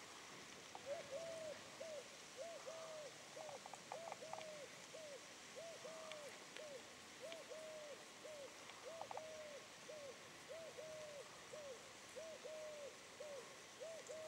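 A bird calling faintly, with a short three-note cooing phrase repeated steadily about every second and a half.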